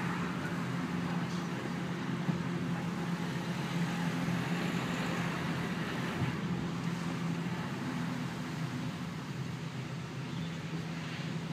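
Car driving slowly, heard from inside the cabin: a steady engine hum with tyre and road noise.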